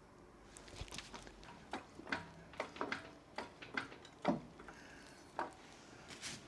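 Faint, irregular light clicks and knocks, about a dozen, of tools and metal parts being handled while the bolted radiator-support box is worked into position.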